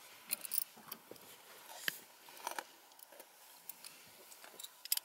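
Faint scattered clicks and rustles of handling and clothing inside a parked car's cabin, with a sharper click about two seconds in and a few more near the end.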